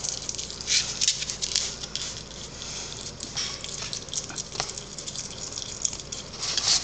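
A pet skunk chewing on chicken thigh, irregular clicks and smacks of its jaws, busier about a second in and again near the end.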